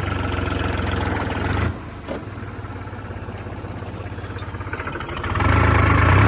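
Tractor diesel engine running while the tractor is worked forward and back in deep mud. It eases off about two seconds in, then is revved up louder near the end.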